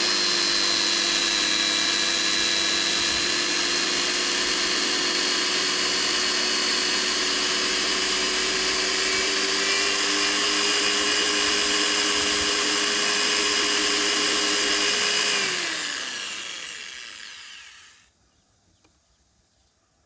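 Electric drill running at a steady speed with a constant whine, then released near the end and spinning down, its pitch falling as it fades out.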